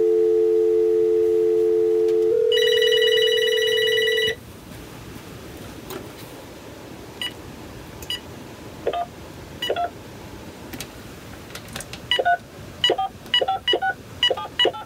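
GE 2.4 GHz cordless phone ringing electronically: a loud steady tone for about two seconds, then a brighter, trilling tone that stops about four seconds in. From about seven seconds the handset's keys are pressed, each giving a short beep, a few at first and then in quick runs near the end.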